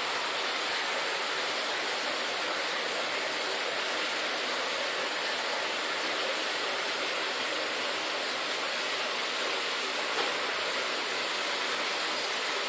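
Steady, even rushing hiss, like a fan or air-conditioner running, with one faint click about ten seconds in.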